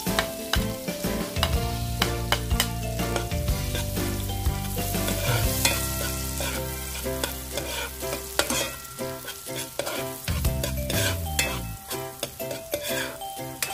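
Chopped onions sizzling in hot butter and oil in a pot while a metal spoon stirs them, clicking and scraping against the pot.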